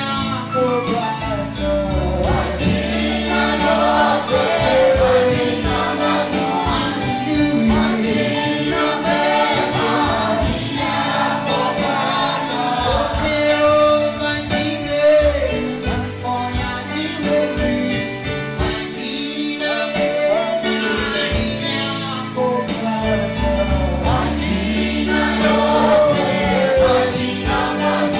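Swahili gospel worship song: a man sings lead into a microphone while a choir of worshippers sings along, continuously with no pauses.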